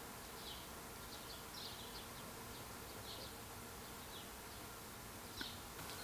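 Faint outdoor background hiss with scattered short, high, faint chirps, and a small click about five and a half seconds in.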